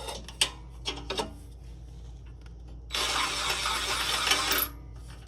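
A power tool run in one burst of about a second and a half, loosening a rusted exhaust downpipe bolt, after a few clicks of the tool and socket being set on the bolt.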